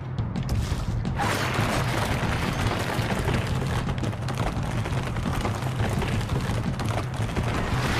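Cartoon action sound effects: a loud, dense rumbling crash, as of giant vines tearing outward across a hedge maze, over dramatic background music. The rumble swells about a second in and keeps going.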